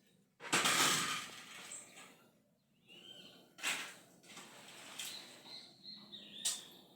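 A loud rustling burst about half a second in, then scattered short bird chirps, higher and thinner, with a few brief knocks and rustles between them.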